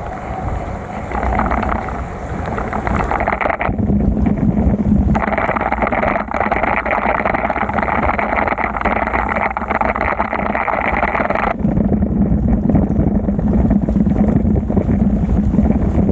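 Wind rumbling on the microphone with the hiss of rain and bicycle tyres on a soaked road, riding through a downpour. The hiss drops away twice for a few seconds, leaving mostly the low wind rumble.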